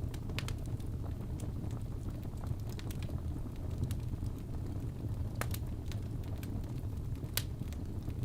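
Wood fire burning in a fireplace: a steady low rumble of flames with scattered sharp crackles and pops, the loudest a little after five seconds in and again near the end.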